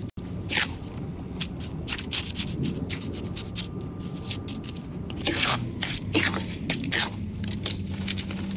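Metal hand trowel stabbing and scraping into the soil and root ball of a potted dwarf papyrus: a quick, irregular run of short gritty scrapes, busiest a little past the middle.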